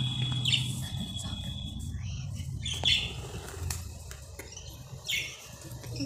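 Budgerigars chirping: three short high calls spread across a few seconds, over a low hum that fades out about a second in.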